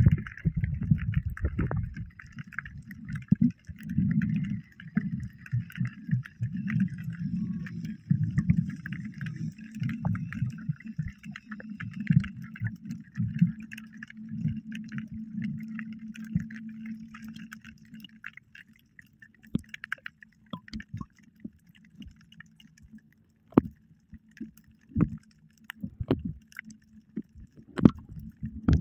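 Water gurgling and sloshing, heard muffled and low-pitched as if underwater, for about the first two-thirds. After that it settles into near quiet with scattered sharp clicks and taps.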